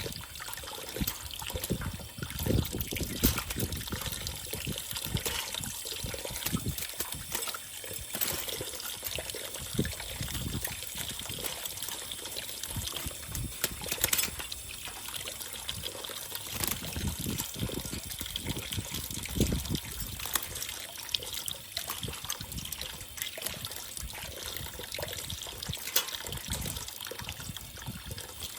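Water trickling and pouring steadily while a pet caique bathes, with irregular short splashes.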